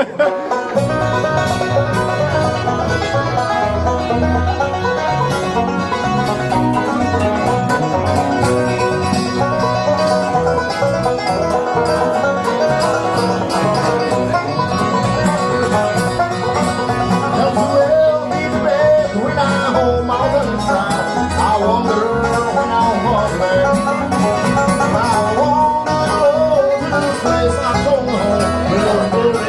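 Bluegrass band playing a slow number: a five-string banjo picking over strummed acoustic guitar and bass.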